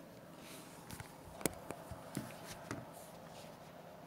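Scattered light clicks and taps with a brief soft rustle near the start: handling noise from someone at a computer desk.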